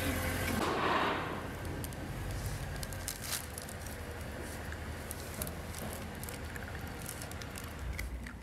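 An Italian greyhound chewing a treat: scattered small crunches and clicks. A car engine hums briefly at the very start.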